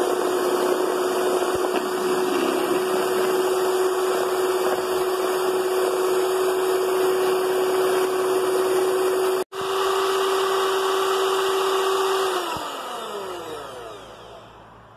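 Electric hand mixer running steadily, its beaters whipping egg whites into stiff peaks. There is a momentary gap about nine and a half seconds in. Near the end the mixer is switched off and its whine falls in pitch as it winds down.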